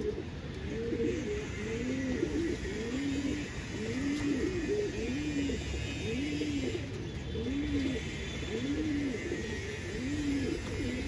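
Several domestic pigeons cooing at once, low rising-and-falling coos overlapping and repeating about once a second.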